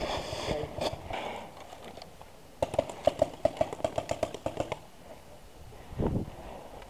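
Airsoft rifle firing a quick string of shots, about six a second for two seconds, starting a few seconds in. A single dull thump follows near the end.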